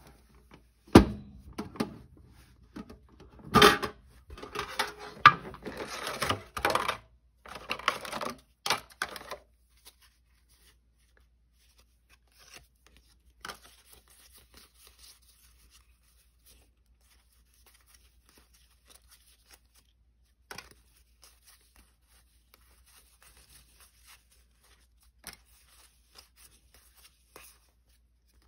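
Foil Pokémon booster pack wrapper being torn open: a sharp click about a second in, then several seconds of ripping and crinkling. After that only faint, scattered rustles and taps.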